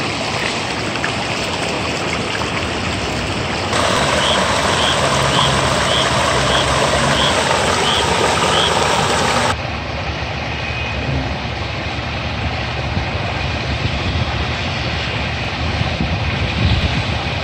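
Steady vehicle and engine noise. A louder stretch from about four seconds in to near ten seconds carries a short, high chirp repeating about every 0.7 seconds, and the sound changes abruptly at both ends of that stretch.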